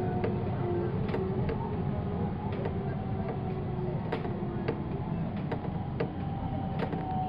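Inside a JR special rapid electric train as it slows into a station. Wheels rumble steadily on the rails under a thin motor and inverter whine that steps in pitch as it brakes. Scattered clicks and ticks from the wheels and car body come through.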